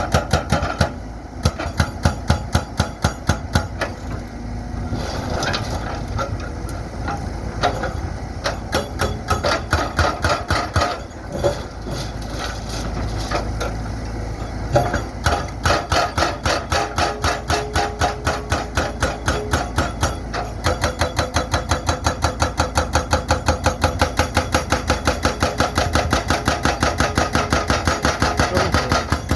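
Excavator-mounted hydraulic breaker hammering concrete, rapid evenly spaced blows in long runs with brief pauses, over the steady running of the excavator's diesel engine.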